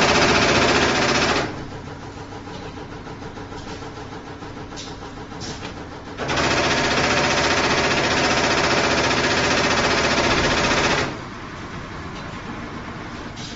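CNC stator lamination notching press punching at a rapid, even stroke rate. There are two loud runs of strokes: one that stops about a second and a half in, and another from about six seconds in to about eleven. Between and after them the machine keeps running more quietly.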